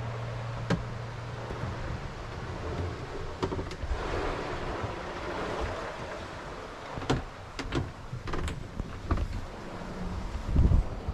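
Sailboat cabin under way: a steady rush of water and motion noise with scattered sharp clicks and knocks, and a heavy low thump near the end.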